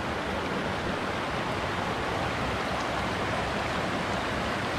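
Steady rushing of running water, like a mountain stream.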